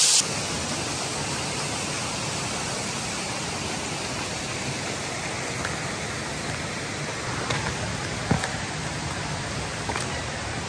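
Steady, even rush of falling water from a mountain waterfall, with a few faint clicks in the second half.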